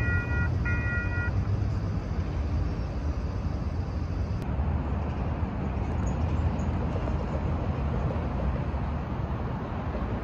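Steady low rumble of downtown street traffic and a CTrain light-rail train moving away. Over it, an electronic warning signal beeps about twice a second for the first second or so, then stops.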